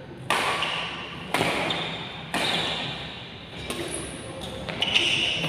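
Badminton rackets striking the shuttlecock during a rally, three sharp hits about a second apart, each ringing on in the echo of a large hall.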